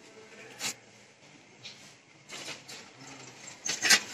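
Water splashing in a plastic tub as a baby moves her legs and hands in it: a few short splashes, the loudest near the end.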